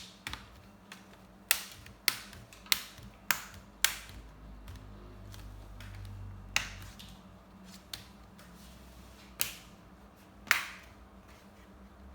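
Sharp plastic clicks from the laptop being handled or operated. Five come evenly, about two a second, then four more at irregular intervals.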